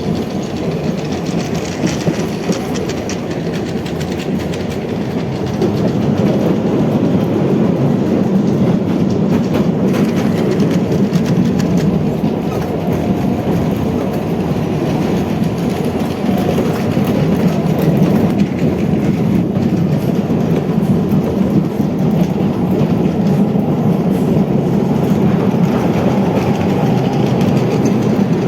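Dubbed-in sound effect of a train running: a steady rumble with the clickety-clack of wheels over rail joints, a little louder from about six seconds in.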